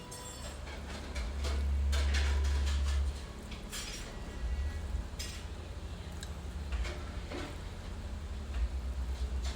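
Tableware clinking: several light, irregular clinks of a utensil against dishes, over a low rumble that swells between about one and three seconds in.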